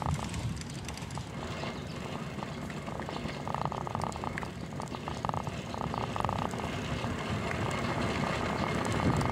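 A bicycle coasting on asphalt, its freewheel hub ticking rapidly in several stretches, with a steady rumble of wind and tyre noise underneath.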